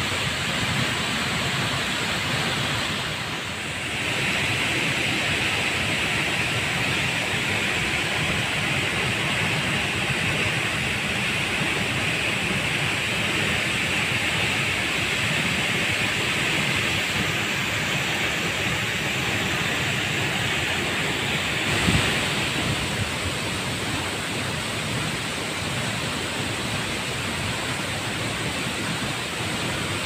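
Large waterfall plunging into a rocky pool: a steady, dense rush of falling water, with a short dip in level about three seconds in.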